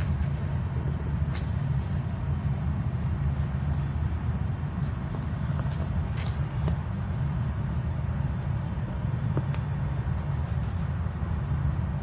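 A steady low rumble throughout, with a few faint clicks and rustles from hands handling the seat upholstery and foam.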